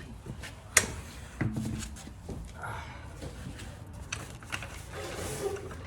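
Scattered clicks and knocks from handling tools and car parts, the sharpest a little under a second in, with a short scraping rustle near the end.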